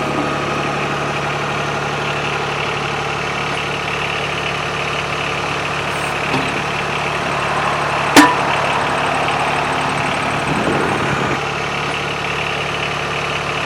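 Branson 2205h compact tractor's diesel engine running steadily at idle, with one sharp metallic clank about eight seconds in.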